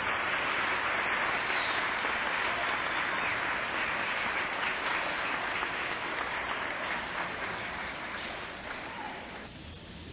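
Audience of schoolchildren applauding at the end of a string orchestra piece, dying away near the end.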